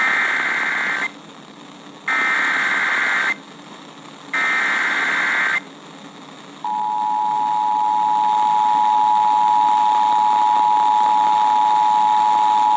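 Emergency Alert System SAME header received over weather radio: three harsh, screeching data bursts of about a second each, separated by radio hiss. About six and a half seconds in, a long steady attention tone follows, signalling the start of a severe thunderstorm warning.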